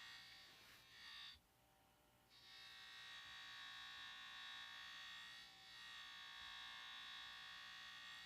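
Faint, steady high whirring hiss of a steel knife blade held against the side of a spinning buffing wheel loaded with sharpening compound. It breaks off for about a second early on, then resumes with a brief dip in the middle as the blade leaves and meets the wheel.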